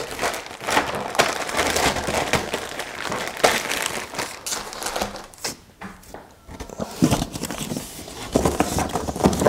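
Clear plastic bag crinkling and rustling as it is handled and folded. Near the end come a few louder knocks and rustles of rummaging in a cardboard box.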